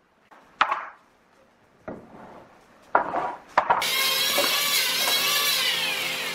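Wooden planks being handled: a few separate knocks and scrapes as boards are picked up and laid down. Just before 4 s a steady hiss with a low hum starts abruptly and continues, louder than the knocks.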